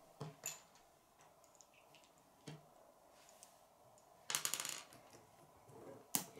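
Plastic K'nex pieces clicking and clattering: a few light clicks, a short rattle of pieces a little past four seconds in, and a sharp snap near the end as a connector is pressed onto the frame.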